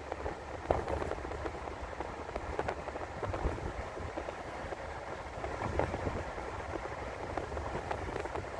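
Road and tyre noise of a moving car heard from inside the cabin: a steady low rumble with a hiss, and scattered small clicks and rattles.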